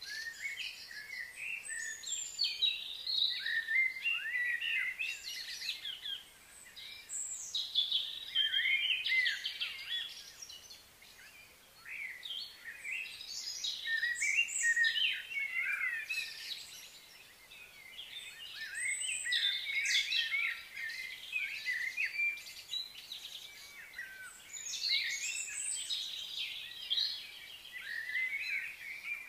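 Birds chirping and twittering, many short calls overlapping in a busy chorus that swells and eases, with brief lulls about eleven and seventeen seconds in.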